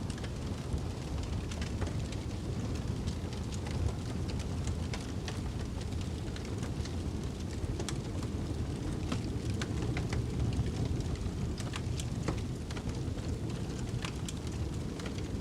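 Wood fire crackling in a fireplace, with sharp irregular pops scattered through it, over a steady low rumble of snowstorm wind.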